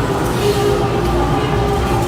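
Shop ambience: a steady low rumble with faint background music in long held notes.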